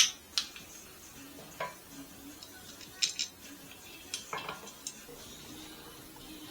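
Hand tools and metal band saw parts clinking and tapping during reassembly. A sharp metallic clank at the start is followed by a scattered handful of lighter clicks and clinks.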